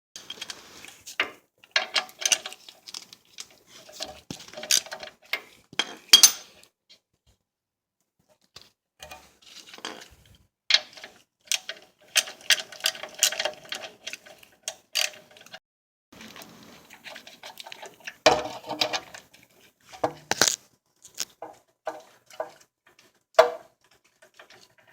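Irregular metallic clanks, clicks and knocks of hand tools and steel suspension parts being handled during ball joint work on a truck's front end, with a brief pause about seven seconds in.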